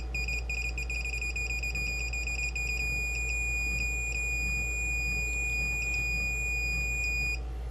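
Electronic beeper on the bench test gear: rapid short beeps that run together into a steady high beep as the signal frequency is dialed up, then stop suddenly near the end. A steady low mains hum runs underneath.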